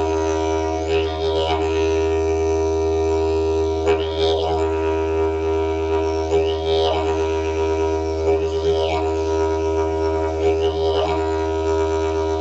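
Didgeridoo played with circular breathing: one unbroken low drone, with a bright rising-and-falling overtone sweep that recurs every two to three seconds.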